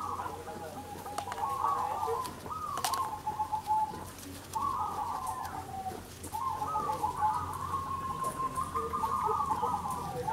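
Many caged zebra doves (perkutut) cooing at once, their repeated coos overlapping into a near-continuous chorus that thins briefly twice. A sharp click about three seconds in.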